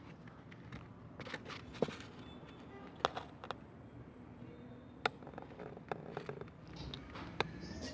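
Scattered sharp clicks and taps, about five in eight seconds, from hands working on the Honda Vario 125's plastic radiator cover while rubber wedges cut from an old inner tube are pressed into place.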